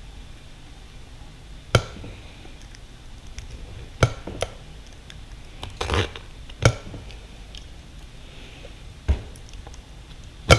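Scattered sharp clicks and knocks of hand tools and parts being handled at a workbench while old dirt-bike handlebar grips are taken off, about seven separate knocks a second or two apart.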